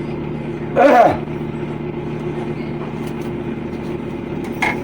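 A steady mechanical hum, like a motor or engine running, with a short shout about a second in.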